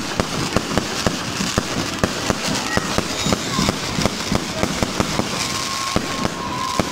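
Aerial fireworks bursting in quick succession: an irregular run of sharp bangs, several a second, without a break.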